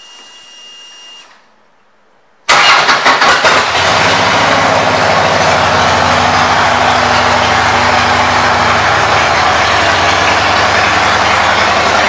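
2009 Harley-Davidson Street Glide's Twin Cam 96 V-twin, breathing through Vance & Hines pipes, starting up about two and a half seconds in. It catches with a loud, uneven burst, then settles into a steady idle.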